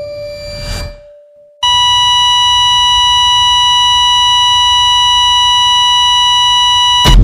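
A loud, steady electronic beep tone, a sound effect, begins about a second and a half in, holds at one pitch for about five and a half seconds and cuts off abruptly near the end. Before it, a bell-like ringing dies away in the first second.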